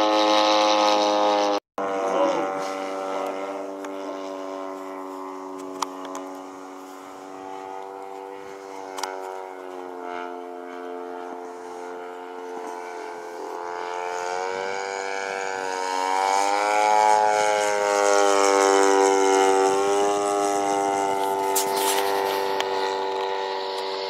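Zenoah G-38 two-stroke gasoline engine of a radio-controlled Fly Baby model plane running in flight with a steady drone. Just under two seconds in the sound breaks off for an instant. It then fades as the plane moves away and grows louder again, its pitch bending up and down, loudest about three-quarters through.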